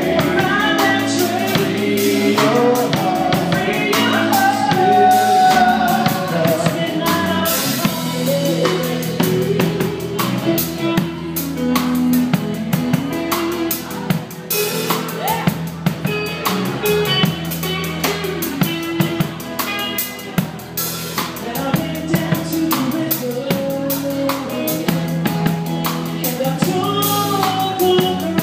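Live band playing a song: a drum kit keeps a steady beat with bass drum, snare and cymbals under electric bass and guitars.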